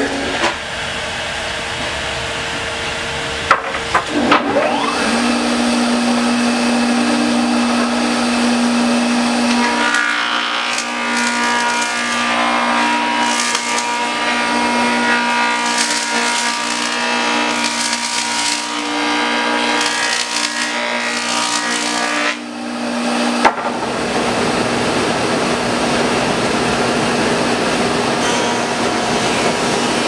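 A jointer running and planing the edge of a walnut board pushed across its cutterhead: steady, loud machine noise with the hiss of cutting.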